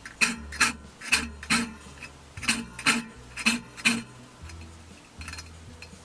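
Steel saw file rasping across the teeth of a crosscut buck saw: about eight quick strokes in pairs, then a pause of nearly two seconds near the end.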